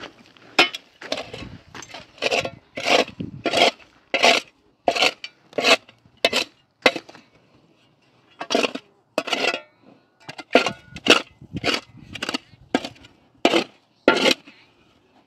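A small hand shovel scraping and digging into stony soil: about twenty short, gritty scrapes at roughly two a second, with a brief pause about halfway through.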